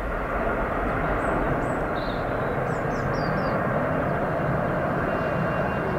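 Airbus A350-1000's Rolls-Royce Trent XWB turbofans running at take-off thrust as the airliner climbs away, a steady jet noise.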